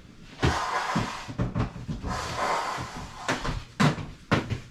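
Household kitchen clatter: several knocks and bumps, like cupboard doors and things being set down, with two stretches of hissing noise, about half a second in and again around two seconds in.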